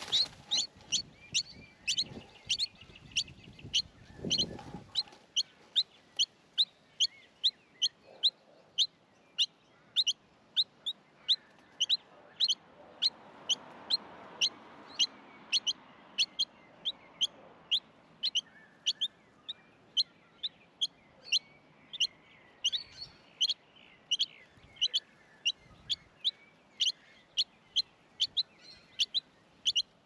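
Small songbird chirping at the nest: one short, high chirp repeated steadily about twice a second, on and on without a break.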